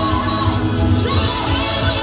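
Music with a singing voice over a pulsing bass beat.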